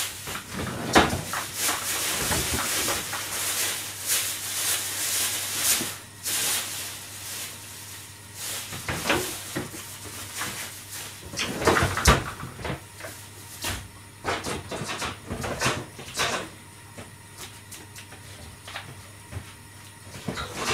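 Kitchen prep sounds: a hiss for about the first six seconds, with knocks and clatter of cookware and cupboards that carry on, scattered, through the rest.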